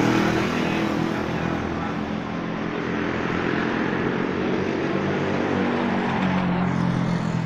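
Motorcycle engine running steadily, with a low, even engine note under a wash of noise; the note grows a little stronger near the end.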